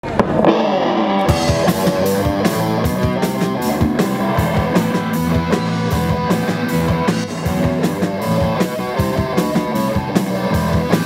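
Punk-rock band playing live: electric guitar chords and a drum kit. The guitar starts alone and the drums come in about a second later with a steady beat.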